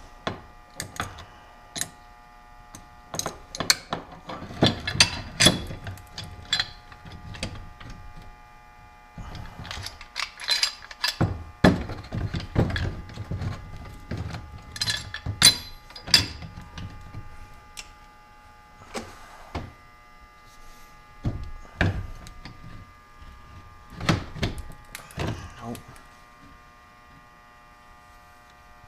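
Metal hand tools knocking, clicking and clinking against a steel power steering pump adjuster bracket as a heat-soaked, rust-seized broken bolt is worked at to break it loose. The clatter comes in bursts of several sharp knocks with short pauses between.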